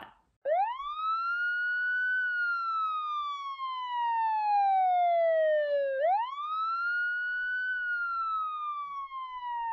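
A wailing siren: a clean tone that sweeps up quickly, then falls slowly over about four seconds, and repeats the same rise and fall a second time without a break.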